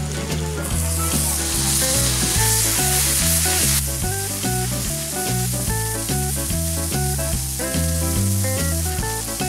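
Hash browns and raw hamburger patties sizzling on a Blackstone flat-top griddle, under background music with a stepping bass line. The sizzle is loudest in the first few seconds and drops abruptly about four seconds in.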